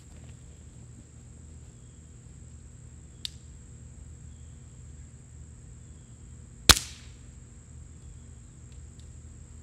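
A Daisy Powerline 880 air rifle shot hitting a smartphone: one sharp crack about two-thirds of the way through, with a short ring-out, as the pellet knocks the phone over. A much fainter click comes about three seconds earlier.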